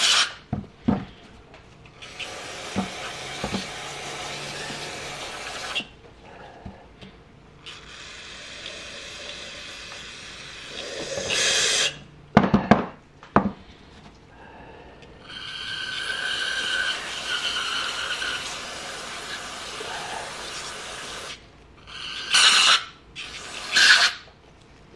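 Aerosol brake cleaner sprayed through a straw nozzle into a motorcycle rear brake master cylinder: three long hissing sprays of several seconds each, then two short sprays near the end. A few sharp knocks of the metal part being handled come about halfway through.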